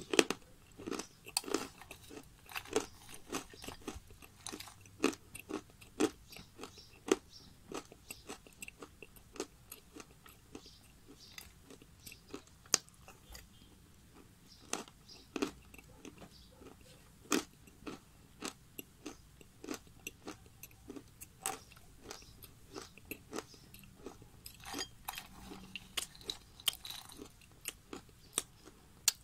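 Close-up crunching and chewing of dry chunks of edible clay: sharp crunches at an irregular pace, coming thickest in the first few seconds and again near the end.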